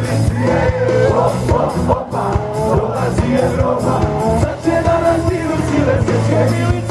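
A live band played through a concert PA: a man singing over electric guitars, bass and drums, with a steady drum beat throughout.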